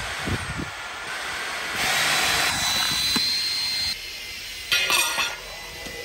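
Dyson Gen5 Detect cordless stick vacuum running: a steady rush of air with a high motor whine. It gets louder for about two seconds in the middle, then drops back, and there is a brief louder rasp about five seconds in.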